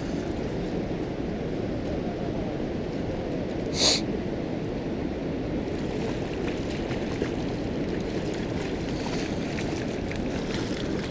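Steady rush of water pouring over the dam spillway, with a brief high hiss about four seconds in.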